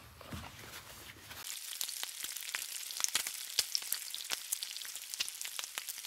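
Bacon sizzling on a flat-top griddle, a steady hiss with many sharp crackling pops, starting suddenly about a second and a half in.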